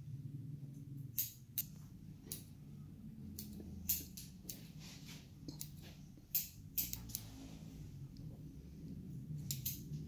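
Barber's scissors snipping through a child's hair: a dozen or so crisp, irregular snips, some in quick pairs, over a low steady background hum.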